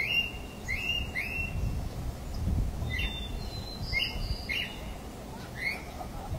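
Birds chirping: short, separate calls, some sweeping downward, coming every half-second to a second or so, over a steady low rumble.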